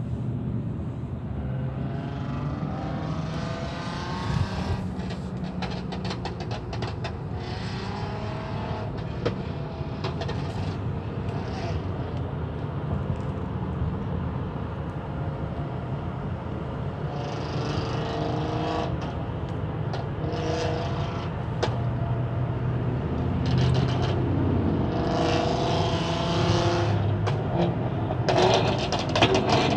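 Cars going by with a steady low hum and wavering whining tones, the unusual noise the cars are making. It gets louder toward the end.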